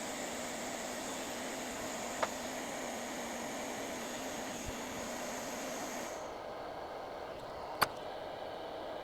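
Steady whir of a fan-cooled electronics bench machine, part of which cuts off about six seconds in, with two sharp clicks, the louder one near the end.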